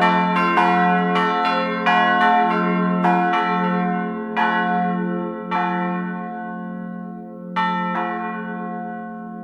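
Church bells ringing, several bells struck in irregular succession so their long ringing overlaps over a steady low hum. The strikes grow sparser and the ringing slowly dies away toward the end.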